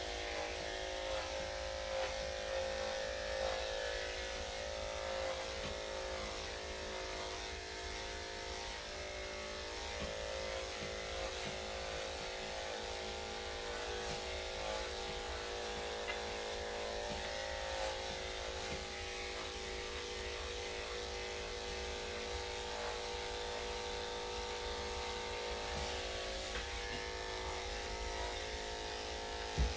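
Corded electric dog-grooming clippers fitted with a #7 blade, running at a steady hum while they shave through a dog's coat.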